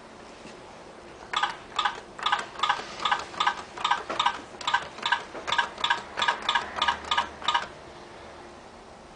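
Mini electronic roulette machine sounding a rapid run of about twenty short, identical beeps, roughly three a second, as its bet buttons are pressed one after another to place bets; the run starts about a second in and stops well before the end.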